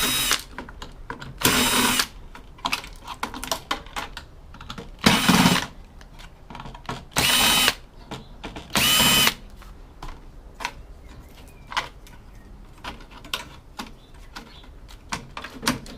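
Cordless drill-driver taking screws out of a computer-style motherboard: five short runs of the motor, each about half a second, in the first nine seconds. Light clicks and clatter of screws and metal parts being handled between them and afterwards.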